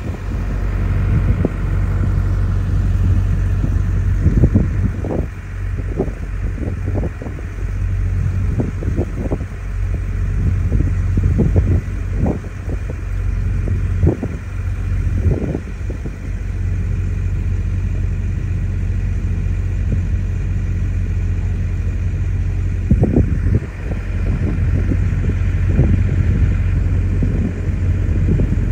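Steady low engine hum of a vehicle aboard a river cable ferry during the crossing, heard from inside a car, with irregular low thumps throughout.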